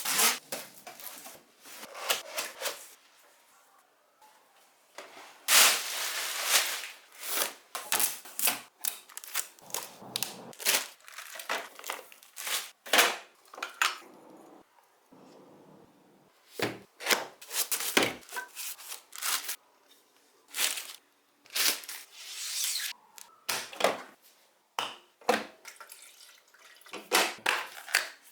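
Packaging being handled and opened: cardboard and plastic rustling, crinkling and tearing, with occasional knocks, in irregular bursts with short pauses between them.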